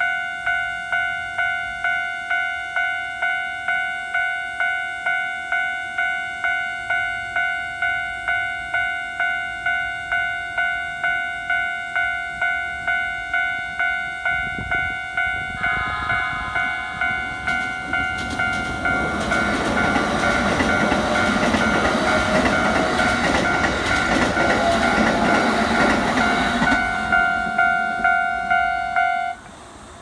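Japanese level-crossing warning bell ringing in rapid, evenly repeated electronic dings, with further tones joining about halfway. A Keikyu 600 series electric train then passes over the crossing, its running noise and rail-joint clatter the loudest sound in the last third. The bell cuts off just before the end.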